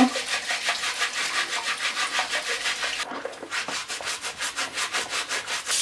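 Stiff-bristled root brush scrubbing a wild boar's hairy foot in soapy water, in quick back-and-forth rasping strokes about five or six a second, with a short pause about three seconds in.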